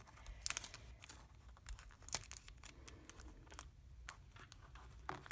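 Faint crinkling and rustling of folded Post-it-note paper cubes and clear sticky tape being handled and pressed down, with a few sharper crackles scattered through.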